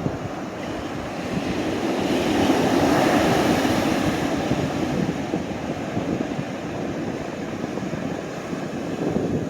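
Heavy surf breaking on the beach in strong wind, with wind buffeting the microphone: rough seas whipped up by an approaching typhoon. The rushing noise swells about two seconds in and eases off after about four.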